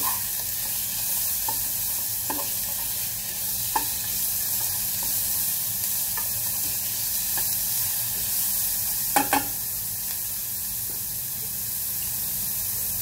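Minced pork and garlic sizzling steadily in hot oil in a pot, with a spatula scraping and knocking against the pot now and then as the meat is broken up and stirred; a louder double knock comes about nine seconds in.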